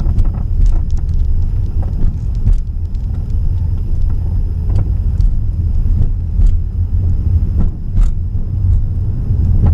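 Road rumble inside a 2015 Dodge Dart's cabin, driving over pavement cracks, with several sharp knocks from the front suspension on the driver's side as the wheels hit the cracks. The owner suspects worn suspension parts such as the shocks or control arms.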